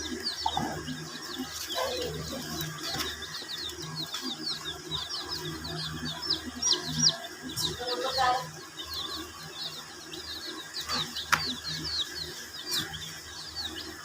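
A group of baby chicken chicks peeping continuously, a dense stream of short, high, falling cheeps, with a few sharp clicks along the way.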